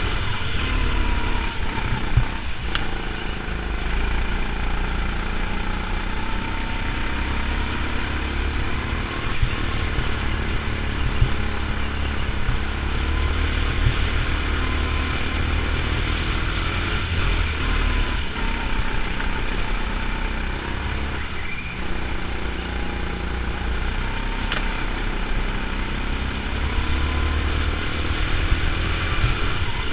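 Go-kart engine heard from on board, running hard through laps, its pitch climbing on the straights and falling away into the corners again and again.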